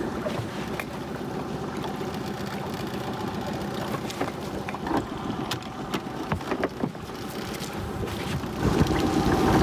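Dinghy outboard motor idling steadily, with a few knocks about halfway through as a crab pot is thrown out, and louder rushing noise near the end.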